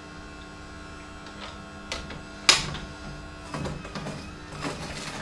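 Philips masticating juicer running, its screw auger motor humming steadily while it crushes a piece of ginger, with a series of sharp cracks and crunches, the loudest about two and a half seconds in.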